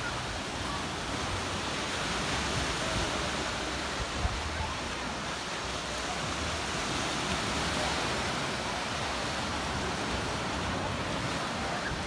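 Small sea waves washing and breaking on the shore, a steady surf noise, with a brief thump about four seconds in.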